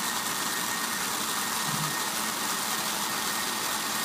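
O-gauge model locomotive running along its track, a steady hiss with a faint thin tone above it.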